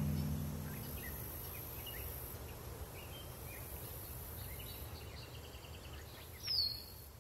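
The song's last chord dies away in the first half second. Then outdoor ambience: scattered short bird chirps over a faint high hiss, and one louder falling bird call about six and a half seconds in.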